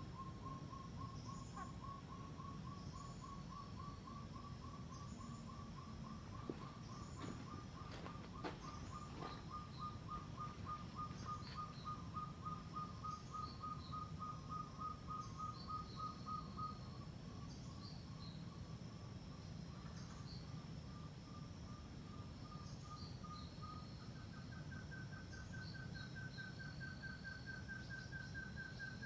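Hill partridge (puyuh gonggong) calling: a long, even series of short whistled notes, several a second, creeping slowly up in pitch and stepping higher near the end. Another small bird gives short high chirps every second or two.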